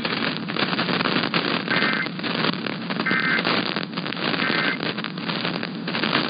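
Heavy crackling radio static over a weak broadcast, with three short two-tone data bursts, evenly spaced about a second and a quarter apart, faint beneath the static: the EAS/SAME end-of-message code that closes the alert.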